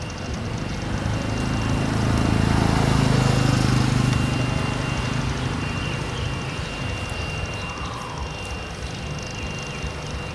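A passing engine, swelling from about a second in to its loudest around three to four seconds, then slowly fading.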